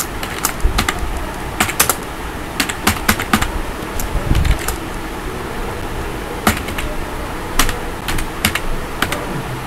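Computer keyboard typing: irregular, scattered key clicks over a steady background hiss.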